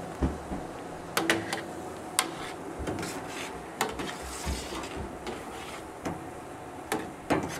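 A spoon stirring boiling wort in a large stainless steel brew pot, knocking against the pot's side every so often over the steady hiss of the rolling boil.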